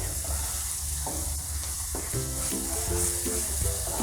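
Onion and spice masala frying in oil in a pan, a steady sizzle as it is stirred and sautéed. A few soft background music notes come in about halfway.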